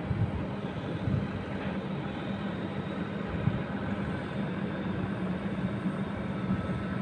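Steady low rumble of machinery running, with a constant hum and small irregular low thumps.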